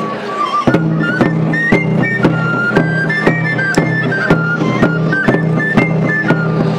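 Catalan flabiol (small three-hole pipe) playing a lively folk dance tune in short stepping notes, with a tambor drum beating steadily about twice a second.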